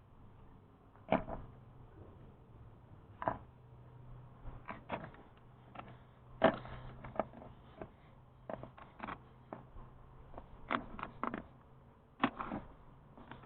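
Irregular clicks and knocks of hand tools and small parts being handled during engine repair work, the loudest about one, six and a half, and twelve seconds in, over a faint steady low hum.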